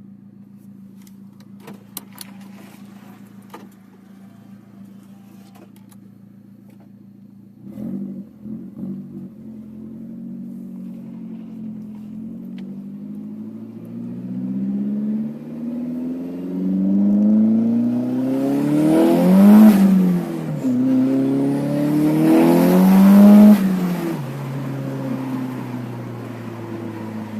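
Nissan 200SX S13's turbocharged CA18DET 1.8-litre four-cylinder running through a 3-inch Japspeed exhaust: idling steadily, a short blip of the throttle about eight seconds in, then revs climbing slowly to a peak, dropping, rising to a second peak and falling back to idle.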